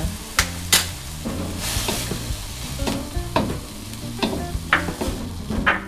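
Wooden spatula scraping and knocking against an aluminium wok while stirring a sizzling carrot and minced chicken filling, with a brighter burst of sizzling about two seconds in as the cornstarch slurry goes into the hot pan.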